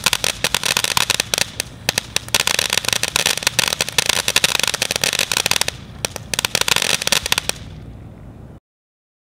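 Megabanger Tiger Blossom firework fountain crackling densely as it sprays its sparks, with a brief lull a little before six seconds in. The crackle dies away about seven and a half seconds in, leaving a short fading hiss before the sound cuts off.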